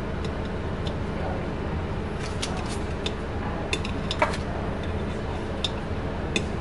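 Kitchen scissors snipping through beef jerky over a ceramic plate: a string of irregular sharp snips and clicks, the loudest about four seconds in, over a steady low background hum.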